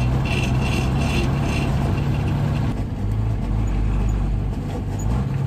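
Old Mercedes-Benz truck's diesel engine running, heard from inside the cab, with a light rattle about twice a second in the first half. About three seconds in, the engine note drops lower, and it comes back up near the end, as during a gear change.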